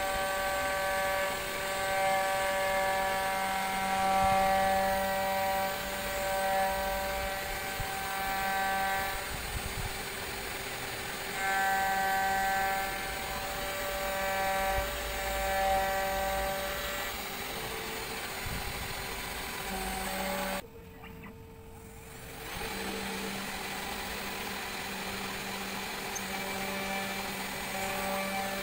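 CNC router spindle turning a 3-flute end mill at about 11,000 rpm, milling clear acrylic: a steady whine with overtones that weakens and strengthens as the cutter moves through the cut. The sound drops out suddenly for about two seconds near the three-quarter mark, then returns.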